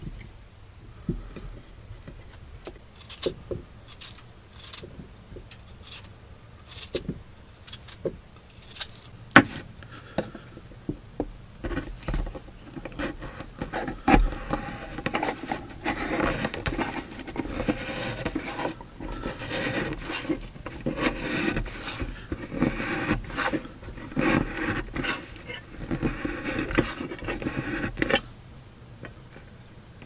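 A tin can being cut open around its rim with a knife: a dense run of quick scraping strokes of blade on thin metal from about twelve seconds in, stopping shortly before the end. Before that come scattered separate knocks and clicks of things being handled on a table.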